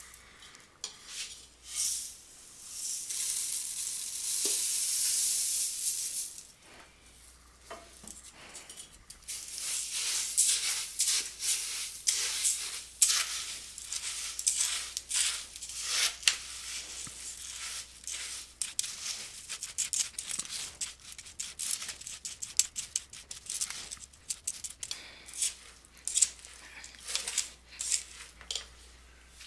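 Dry crisped rice cereal poured into a metal pot of melted marshmallow, a steady rushing hiss for a few seconds. Then a plastic spatula stirs the crisp cereal through the sticky mixture, with quick irregular crackles and scrapes against the pot.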